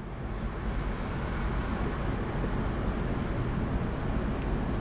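Steady low rumble of city traffic from the streets below, with two faint ticks, one about one and a half seconds in and one near the end.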